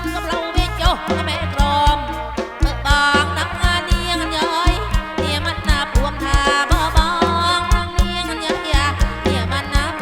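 Live kantrum band playing loudly through a PA sound system: a heavy, frequent bass drum beat under bending melodic lines.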